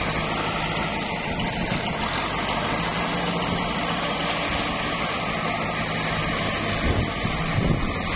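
Kubota tractor's diesel engine running steadily as it ploughs through deep muddy water, with the water churning around its wheels and blade.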